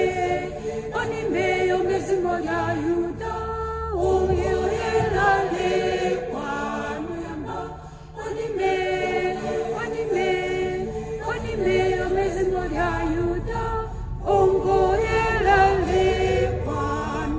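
A choir of several voices singing unaccompanied, in sung phrases with short breaks, over a low rumble from the moving car.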